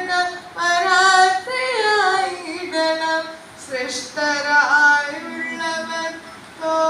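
A woman singing solo into a handheld microphone, with no accompaniment. She holds long notes and bends the pitch in slides and small wavers between phrases, with short breaks for breath.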